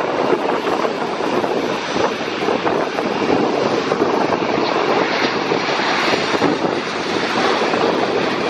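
Jet noise from a Boeing 737-800's CFM56 turbofan engines at approach power as the airliner comes in low on final with its gear down: a loud, steady rushing noise.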